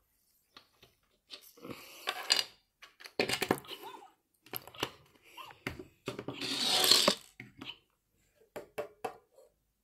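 LEGO plastic pieces clicking, rattling and rubbing as a cat-suit power-up is pulled off a LEGO Mario figure and the figure is handled, with a longer scraping rustle about six to seven seconds in.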